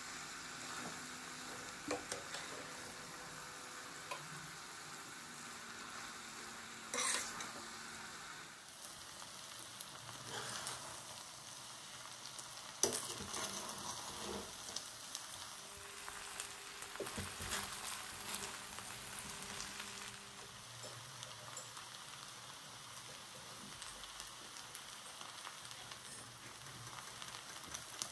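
Stir-fried ramen noodles sizzling in a stainless steel pot while a metal spoon stirs and tosses them, with a few sharp clinks of the spoon against the pot, the loudest about halfway through.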